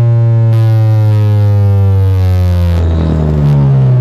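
A loud tone with many overtones, slowly falling in pitch, blasted through a competition car sound system. A hiss joins about half a second in and stops near three seconds, and the tone turns rougher near the end.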